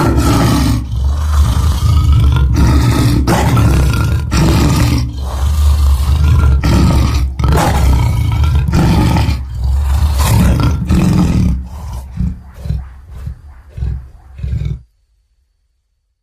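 Long monster-roar sound effect with a heavy low rumble, broken into many quick surges. Over its last few seconds it breaks into shorter, weaker growling pulses, then cuts off suddenly near the end.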